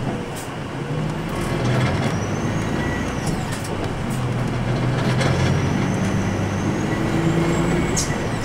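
Nissan Diesel Space Runner RA city bus (ADG-RA273MAN) under way, heard from inside the cabin. A steady diesel engine drone with a whine that rises in pitch near the end, and a few short knocks and rattles.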